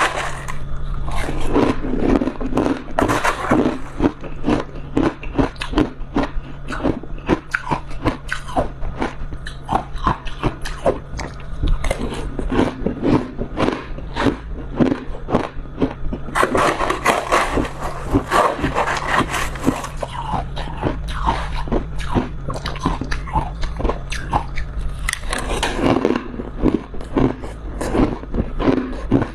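A person biting and chewing a chunk of freezer frost: a dense, unbroken run of crisp crunches, heavier about halfway through and again near the end, over a steady low hum.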